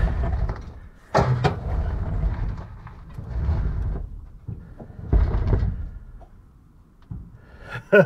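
Strong gusty desert wind buffeting the microphone in rumbling swells that rise and fall every second or two. Two sharp knocks come a little over a second in.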